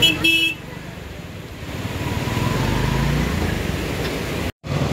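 Road traffic on a wet road: a vehicle's rumble builds and passes, with a short high tone like a horn right at the start. The sound cuts out abruptly for a moment near the end.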